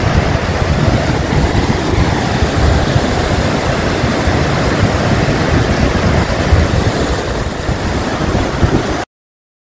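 Muddy floodwater rushing over rocks and debris in a swollen stream channel: a loud, steady rush, with wind buffeting the microphone. It cuts off abruptly about nine seconds in.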